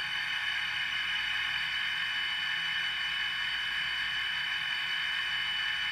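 Recorded diesel engine sound from an HO scale Atlas GP40 model locomotive's sound decoder, played through its small factory speaker: a steady electronic engine drone with little bass.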